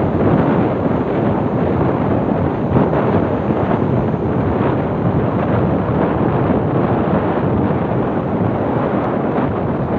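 Sea waves washing in steadily, a continuous surf noise with gentle swells, with wind buffeting the microphone.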